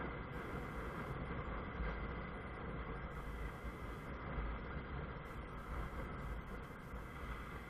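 Riding noise on a Honda CBF 125 motorcycle at road speed: steady wind rumble and road noise, with the bike's small single-cylinder engine running underneath.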